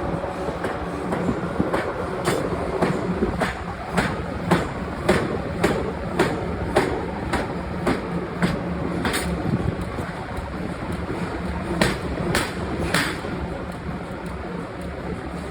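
Stamping press striking metal over and over, about two sharp impacts a second over a steady machine hum, with a short lull past the middle.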